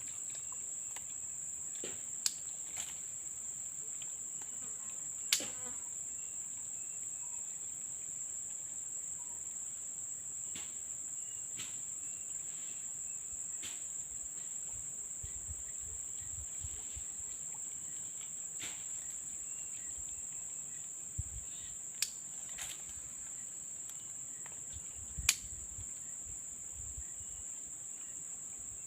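A steady, high-pitched chorus of insects such as crickets trilling without a break, with a few sharp clicks cutting through it about two, five, twenty-two and twenty-five seconds in.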